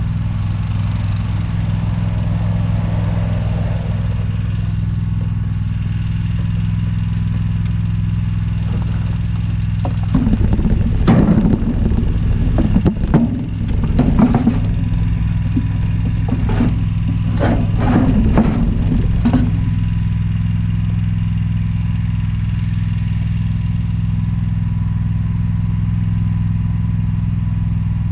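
Small engine of lawn equipment running steadily at a constant speed. From about ten seconds in, for about ten seconds, irregular clattering and rushing noise rides over it.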